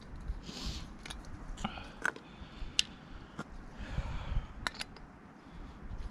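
Scattered sharp clicks and short rustles of hands handling camping cooking kit, such as a small gas canister and stove being set up, with two brief hissy rustles about half a second and four seconds in.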